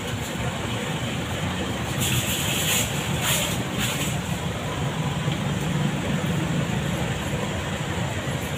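Steady low background rumble, with a short hiss about two seconds in and another a little after three seconds.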